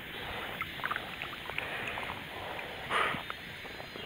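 Water splashing and dripping as a bass is released by hand from a float tube: small drips and splashes, then one short, louder splash about three seconds in.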